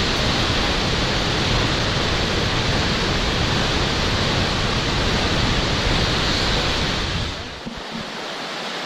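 Steady rush of a waterfall heard close to its plunge, a dense even noise with a deep rumble underneath. About seven and a half seconds in, it gives way to the quieter, thinner rush of a creek.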